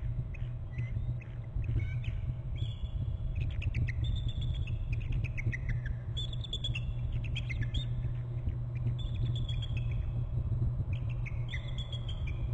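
Bald eagles trilling: repeated runs of high, piping chirps that fall in pitch, coming every second or two, over a steady low rumble.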